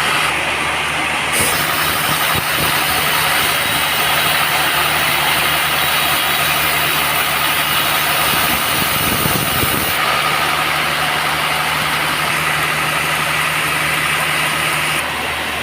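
Band sawmill's engine running steadily, with a constant hiss over it and a brief rougher stretch about two-thirds of the way through.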